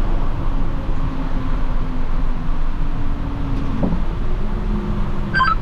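Plow truck's engine running steadily with a low rumble, heard from inside the cab as the truck eases up to a stop.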